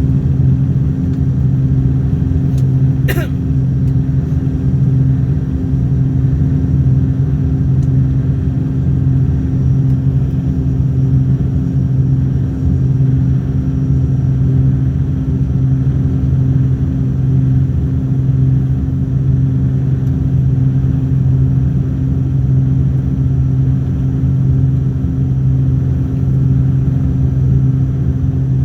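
Steady drone of an airliner's engines as it comes in to land, a strong low hum that holds the same pitch throughout. A brief sharp click about three seconds in.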